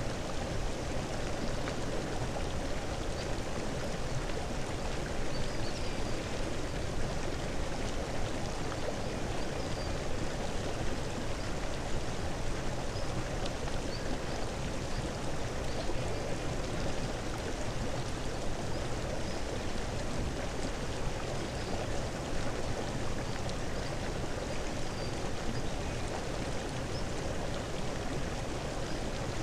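Steady rushing noise like running water, with faint brief high chirps now and then.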